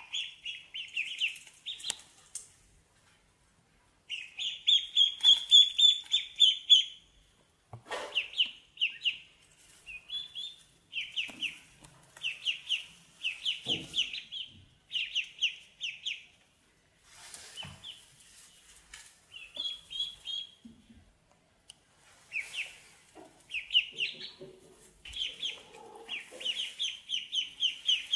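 Several ducklings peeping: rapid strings of short, high-pitched chirps that come in runs with brief pauses between them.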